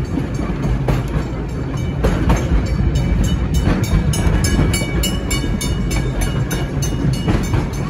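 Vintage electric streetcar running along the track, heard from on board: a steady low rumble of wheels and running gear, with a run of rapid, even clicking through the middle.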